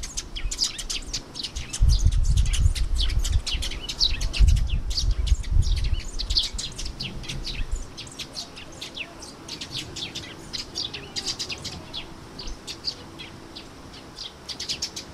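Eurasian tree sparrows chirping in quick, repeated short chirps all through, with a low rumble during the first half.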